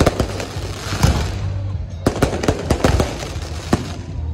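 Aerial firework shells bursting in irregular volleys of sharp bangs, several close together, over a steady low hum.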